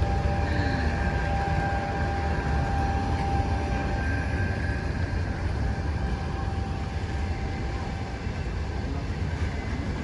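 Passenger train at a station platform: a steady low rumble with a faint steady whine that fades out about halfway through.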